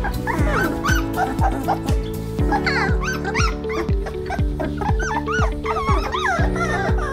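Litter of 19-day-old Weimaraner puppies squeaking and whimpering in short, rising-and-falling cries. Background music with a steady beat, about two beats a second, plays under them.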